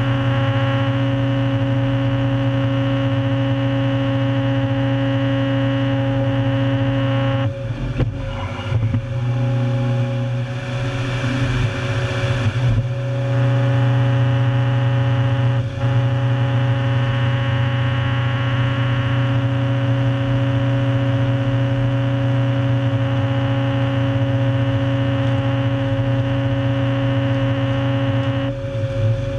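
Heavy diesel engine and hydraulics of a 400-plus-horsepower tracked stump destroyer running hard and droning steadily while its rotating cutter head grinds Sitka spruce stumps into chips. About eight seconds in the steady drone breaks up and turns rougher and hissier for several seconds as the head shifts to the next stump, then settles back to the same drone.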